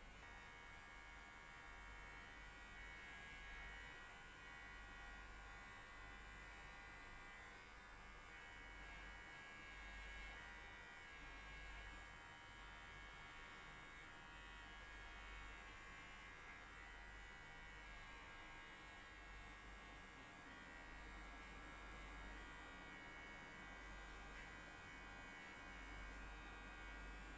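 Electric hair clipper running with a faint, steady hum while trimming a cat's fur.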